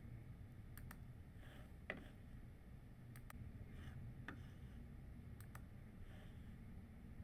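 A scattered handful of short, sharp computer mouse and keyboard clicks at irregular intervals, over a faint low hum.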